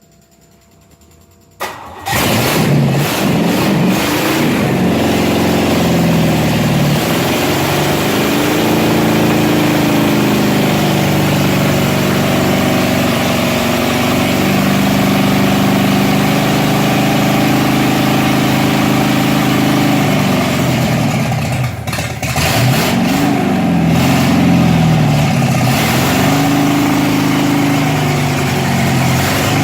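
Freshly installed 350 Chevy small-block V8 starting about two seconds in and running loudly, its pitch rising and falling as the throttle is worked again and again, with a brief sag and recovery near the end. The idle is not yet adjusted: on its own it runs at no idle.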